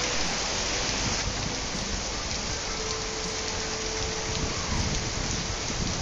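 Rain falling steadily, an even hiss with no break.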